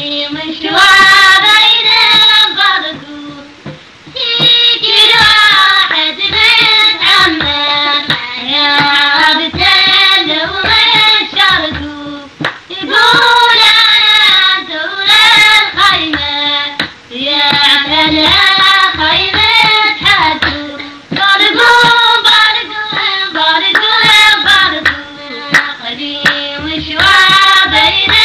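A woman singing a song in repeated phrases with short breaks, with hand clapping throughout.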